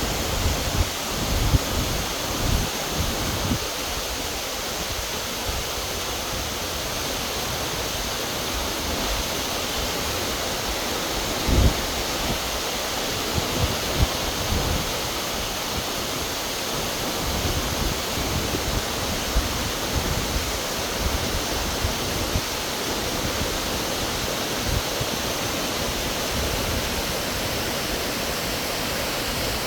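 Waterfall pouring into a rock pool, a steady, even rush of falling water, with a few brief low thumps on the microphone.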